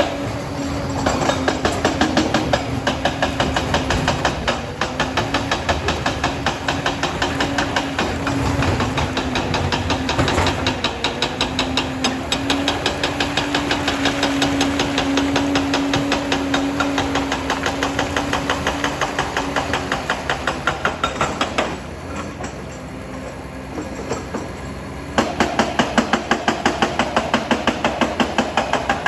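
Liebherr PR 746 crawler dozer at work: its diesel engine runs under a wavering steady tone, with a rapid, continuous clanking from the steel tracks. It goes quieter for a few seconds about three quarters of the way through, then picks up loud again.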